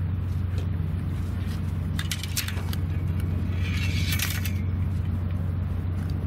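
Steady low engine-like hum. A few sharp clicks come about two seconds in, and a brief hiss about four seconds in.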